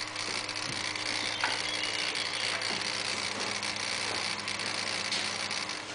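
Electric starter cranking the cold Aprilia SR50's DiTech two-stroke engine, a steady mechanical whirring that stops abruptly near the end without the engine catching.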